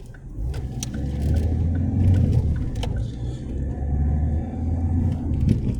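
Car interior rumble of the engine and tyres while driving, heard from inside the cabin, swelling about half a second in and then holding steady.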